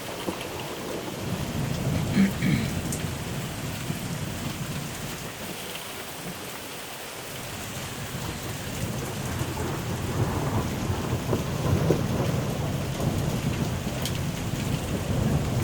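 Rain falling steadily on surfaces, a dense pattering with a few sharper ticks, with low rumbling swells about two seconds in and again from about nine seconds on.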